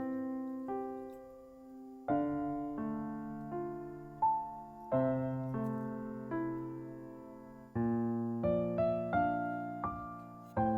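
Background piano music: chords struck every few seconds, each ringing and fading, with single notes played between them.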